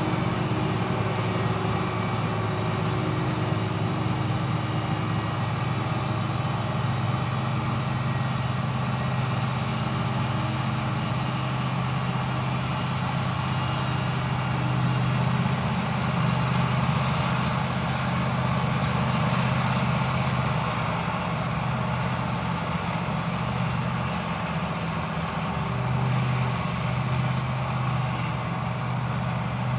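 Krone Big X 770 self-propelled forage harvester running under load while chopping standing maize: a steady, loud engine and machine drone that grows a little louder about fifteen to twenty seconds in as the harvester passes close by.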